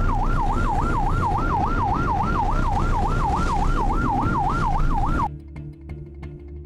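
Coast guard patrol vessel's electronic siren yelping, sweeping up and down about three to four times a second, over a low rumble of engine, wind and sea. It cuts off abruptly about five seconds in, and quiet background music begins.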